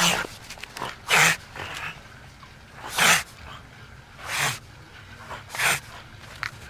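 Otter giving raspy, breathy snarls close up. There are five loud hissing bursts one to two seconds apart, with softer breaths between them.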